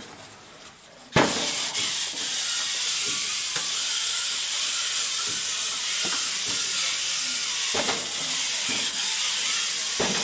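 Competition robot running on the field: a steady mechanical hiss that cuts in suddenly about a second in, with scattered clicks and knocks from its mechanisms.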